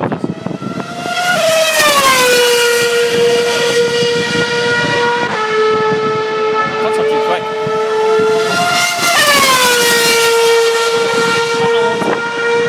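Formula One cars passing at full throttle, their engines giving a high-pitched scream whose pitch drops as each car goes by, then holds steady as it draws away. This happens twice, about a second and a half in and again about nine seconds in.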